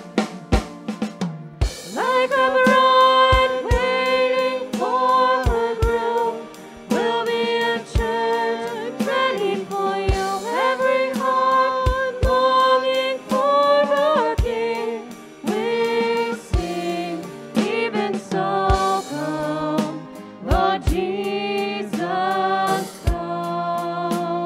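Contemporary worship band playing a song: sung vocals over grand piano, acoustic guitar and a drum kit, with a kick drum hitting about once a second.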